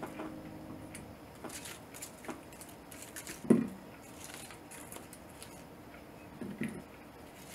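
Apples being picked out of a wicker basket among their leaves: light rustling and soft knocks, with one louder thump about three and a half seconds in as an apple is set into a metal colander.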